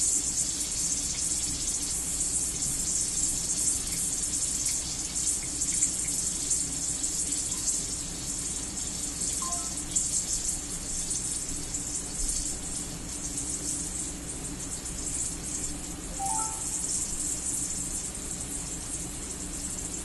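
Gas hissing out of a bottle of Eikun 'bakuhatsu' nigori sake as the cap is eased open to vent the pressure little by little. The hiss is steady but wavering, and eases somewhat partway through.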